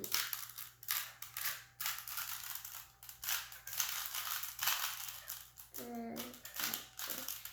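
Rubik's Cube being turned by hand: a quick, uneven run of plastic clicks and clacks as its layers are rotated.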